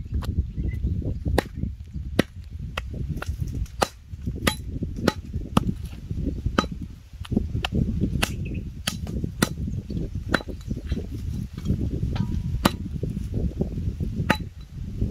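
Repeated chopping strikes, irregular, roughly one or two a second, over a steady low rumble.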